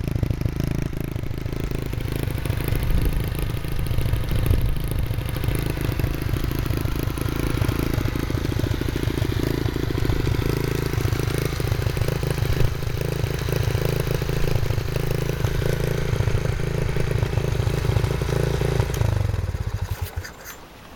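Honda Monkey's small single-cylinder four-stroke engine running steadily, its exhaust pulsing evenly, then shut off about two seconds before the end.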